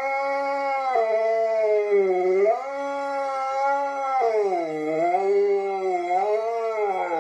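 A large husky-type dog howling in one long unbroken howl, its pitch rising and falling in slow swoops several times.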